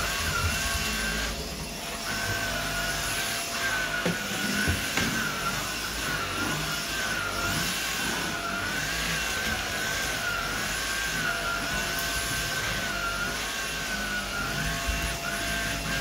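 Stick vacuum cleaner running steadily on a wooden floor: a rushing hum of suction with a high motor whine that wavers slightly in pitch as the floor head is pushed about.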